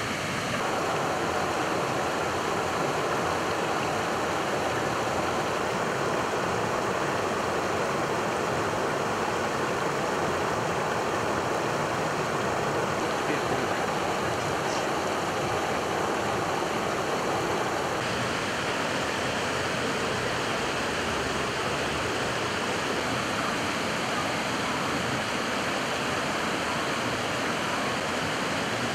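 River water rushing steadily below a stone bridge, an even hiss that shifts slightly in tone about eighteen seconds in.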